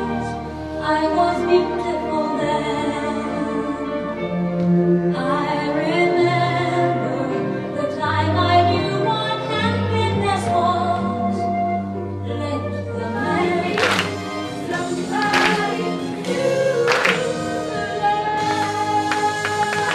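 Stage-show music with a group of voices singing over a bass line, with a few sharp hits a little after halfway.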